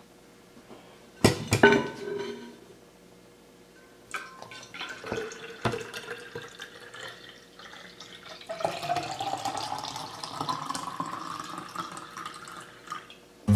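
Coffee poured from a French press into a narrow stainless-steel Hydro Flask bottle, the splashing sound rising steadily in pitch as the bottle fills, then stopping near the end. A couple of sharp knocks about a second in.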